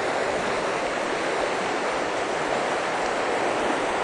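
A fast river running high over a rocky bed: a steady rush of water.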